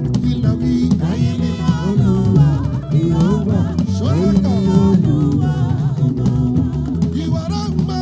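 Live gospel band music: a gliding lead melody over bass and a regular drum-kit beat.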